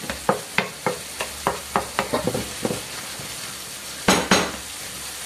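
Wooden spoon stirring onion, garlic and fried tomato sauce in a sizzling non-stick frying pan, with a quick run of scraping taps against the pan. Two louder knocks come about four seconds in as the spoon is set down on a plate.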